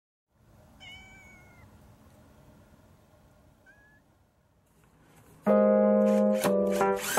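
A domestic cat meows once about a second in and gives a short rising call a few seconds later. Background music with held keyboard notes starts loudly about five and a half seconds in.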